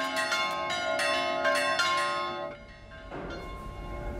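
Church bells of a Greek Orthodox church ringing in quick strokes, calling the faithful to the Easter night service. About two and a half seconds in the ringing drops to a quieter, steadier sound.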